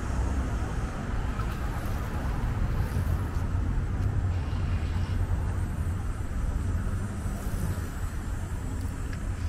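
A steady low rumble of outdoor background noise, with no distinct event standing out.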